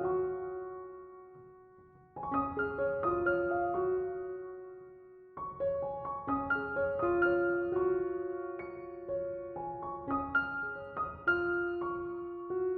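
Soft solo piano background music: gentle phrases of struck notes that fade out before the next phrase begins.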